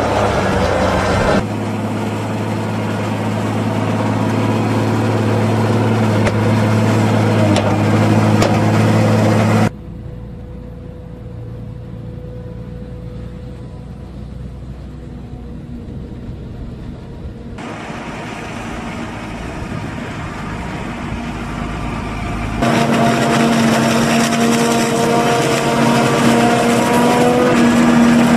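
Farm tractor engines and a forage harvester running steadily during corn silage chopping, heard in several shots whose sound changes abruptly at each cut. The middle stretch is quieter and duller; near the end a tractor engine's tone rises slightly.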